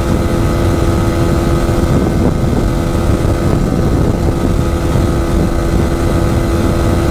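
Yamaha R15 V4's 155 cc single-cylinder engine running flat out at a steady pitch near top speed, the speedometer holding 142 km/h, with heavy wind rush on the microphone.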